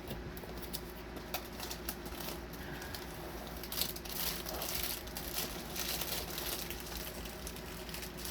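Light rustling and crinkling of plastic packaging being handled, with scattered small clicks over a steady low hum.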